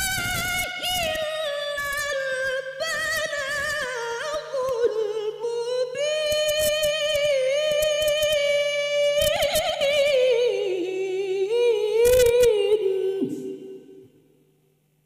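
A woman's Quran recitation in the tilawah style through a microphone: one long melodic phrase held on a single breath, winding slowly downward in pitch with ornamented turns. It ends about 13 seconds in and fades away.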